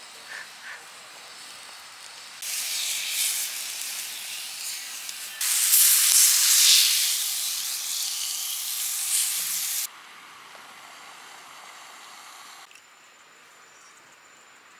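Beef sizzling on a hot rock-salt plate over a grill: a dense hiss that starts abruptly, grows louder partway through and cuts off sharply, then fades to a faint hiss near the end. There are a couple of light clicks at the start.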